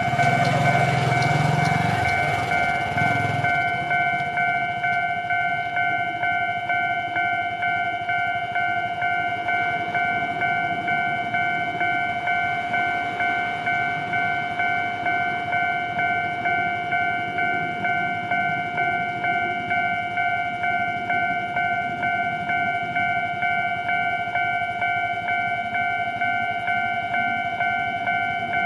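Japanese level-crossing warning alarm ringing on and on in an even, repeating rhythm. In the first few seconds a passing electric train's rumble fades away beneath it.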